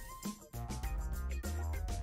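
Background music with a steady beat; it dips almost to nothing about half a second in, then comes back in.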